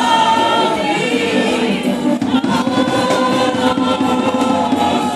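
A woman leads a gospel praise song into a microphone while a group of women sing along in chorus.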